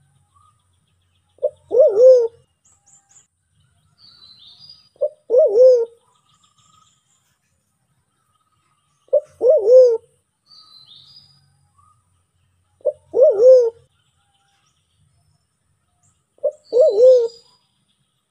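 Sulawesi black pigeon (white-faced cuckoo-dove, Turacoena manadensis) calling five times, about every three and a half to four seconds. Each call is a short note followed by a longer, deeper note that swells and falls. Faint high chirps of other birds can be heard between the calls.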